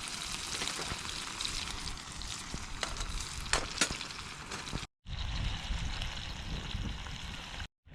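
Burgers sizzling and crackling in a frying pan on a camping stove. After a cut about five seconds in, a low rumble joins the sizzle.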